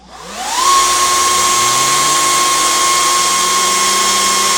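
Small electric motor spinning up to speed within the first second, then holding a loud, steady high whine while it drives a wooden fidget spinner super fast.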